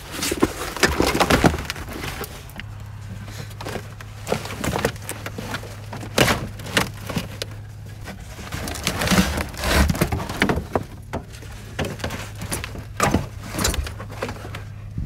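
1992 Mazda Miata's molded floor carpet being pulled up off the floor pan and dragged out of the car: irregular crackling, rustling and scraping with scattered knocks as the stiff carpet comes away.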